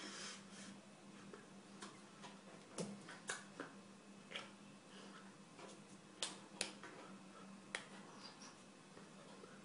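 Scattered faint clicks and taps at irregular intervals from a person signing in Brazilian Sign Language without voice: hands striking each other and the body, and mouth clicks from the mouthing, over a faint steady hum.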